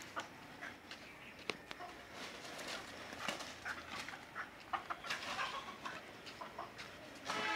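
Chickens clucking in short, scattered calls, mixed with light ticks and taps; a louder pitched sound starts just before the end.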